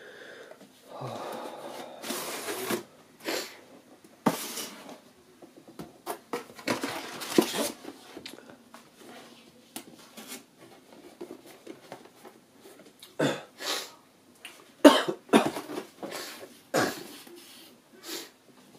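Packaging being handled: a paper instruction manual and cardboard box rustling, with a scatter of sharp knocks on the table. Among them, a man with a cold coughs.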